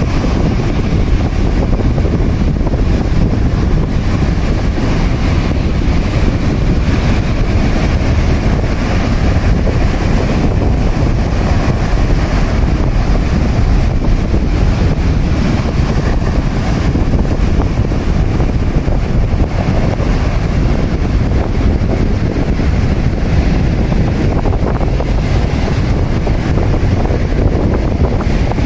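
Strong wind from an approaching typhoon buffeting the microphone, over heavy surf breaking on the shore. The noise is loud and steady throughout, with no distinct single crashes.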